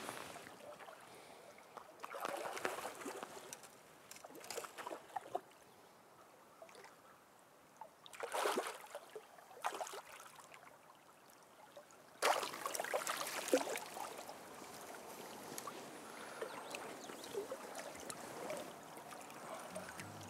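Water splashing in a shallow river as an Atlantic salmon is tailed by hand and held for release, in several separate bursts. The longest begins about twelve seconds in, over the faint steady run of the current.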